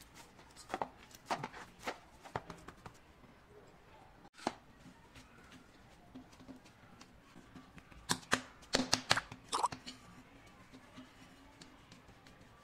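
Hands kneading a soft dough in a plastic bowl and then patting it on a stone countertop: scattered soft knocks and rubs, with a quick run of sharper knocks about eight to ten seconds in.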